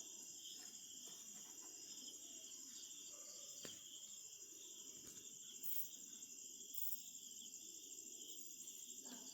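Crickets chirping in a faint, steady, high-pitched chorus, with one light tap about three and a half seconds in.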